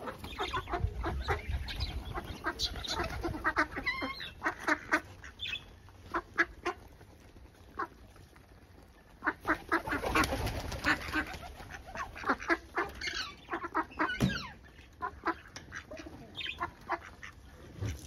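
Mixed flock of domestic fowl calling: chickens clucking and ducks calling in short, scattered calls.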